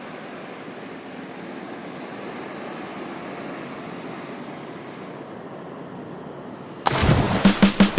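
Steady wash of ocean surf as a sound effect. Near the end, loud drum-led music cuts in suddenly.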